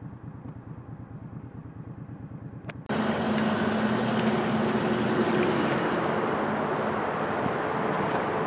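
V-twin motorcycle engine idling at a stop, a quiet low even pulse. About three seconds in the sound cuts abruptly to a louder, steady rushing noise with a low hum.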